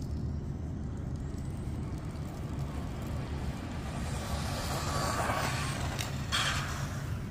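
Electric Team Associated Reflex 14T RC car running flat out on concrete, its motor and tyre noise swelling for a couple of seconds past the middle over a steady low rumble. A short, sharp burst of noise comes near the end.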